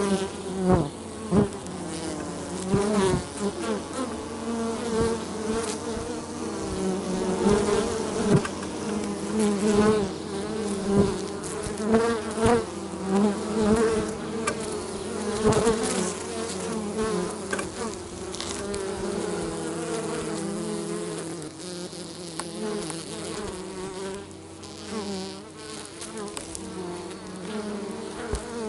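Feral honey bees buzzing close around their nest entrance in a hollow pine tree: a wavering hum that swells and bends in pitch as individual bees fly past the microphone. Frequent sharp ticks are scattered through it.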